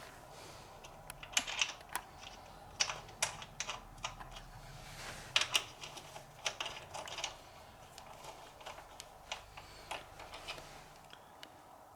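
Irregular light metallic clicks and clinks of hand tools on bolts, coming in small clusters, as the motorcycle's foot peg bolts are backed out and refitted with thread-locker.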